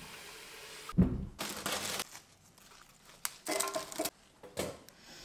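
Plastic wrapping crinkling as it is handled, in several short rustling bursts, with a heavy thump about a second in.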